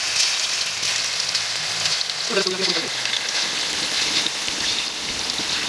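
Pieces of curry-marinated pork spare ribs deep-frying in hot oil in a wok, as more pieces are dropped in: a steady, dense sizzle and crackle.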